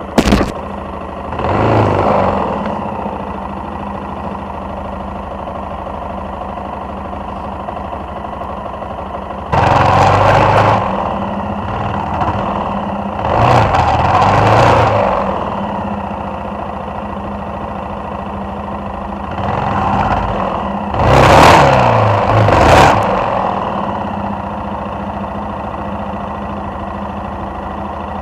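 Suzuki XF650 Freewind's single-cylinder engine running at a steady low speed, opened up in several bursts of revving that rise and fall: a sharp blip right at the start, then surges about two, ten, fourteen and twenty-one to twenty-three seconds in.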